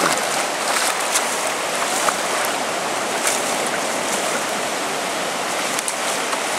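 Shallow surf washing over sand, a steady foamy hiss with scattered small splashes and crackles.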